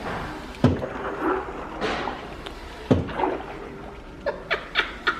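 Butter churn at a hands-on exhibit being worked by hand: two heavy thuds about two seconds apart, with swishing between them and a few lighter knocks near the end.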